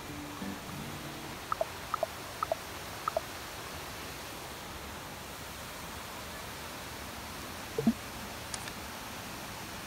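Steady rushing of a forest waterfall and stream. Four quick two-note chirps, each pair stepping down in pitch, come between about one and a half and three seconds in, and a short low-pitched sound comes near the end.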